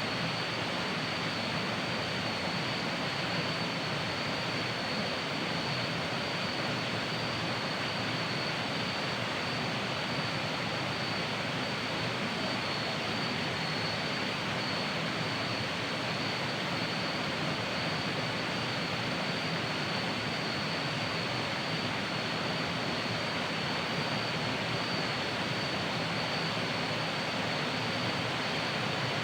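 Waterfall rushing, a steady, unchanging roar of falling water, with a continuous high-pitched insect buzz above it from the surrounding tropical forest.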